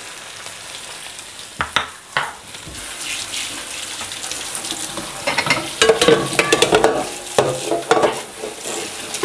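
Marinated anchovies sizzling in hot coconut oil in a frying pan on a low flame: a steady sizzle with a few sharp pops early on, then busier spitting and crackling from about halfway through.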